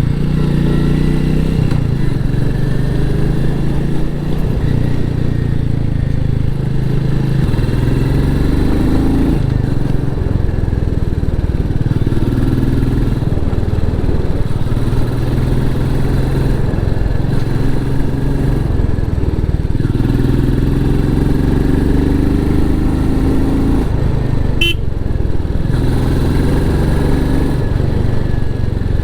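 Royal Enfield Meteor 350's single-cylinder engine running through its stock exhaust while riding, its pitch rising and falling every few seconds with throttle and gear changes. A short sharp sound with a high tone cuts in briefly about 25 seconds in.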